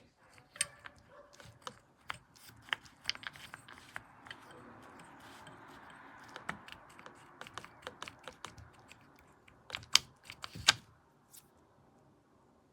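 Irregular clicks and taps of hard plastic objects being handled and knocked together, with two louder knocks near the end and a faint hiss in the middle.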